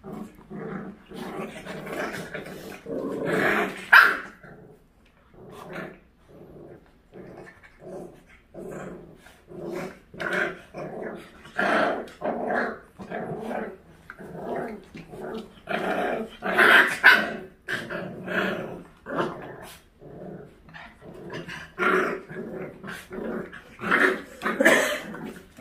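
A puppy and two bigger dogs play-fighting, growling over and over with now and then a sharp bark or yip. The loudest outbursts come about 4 seconds in, around 17 seconds and in the last few seconds.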